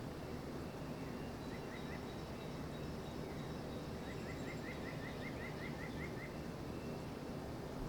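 Songbirds chirping in woodland: short chirps repeated in quick runs, the longest a rapid series of about a dozen notes a little past halfway, over a steady low background rumble.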